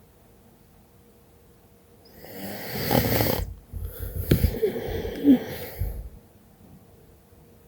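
A woman snoring in her sleep while ill. One loud snore starts about two seconds in and lasts about four seconds, with a short break in the middle.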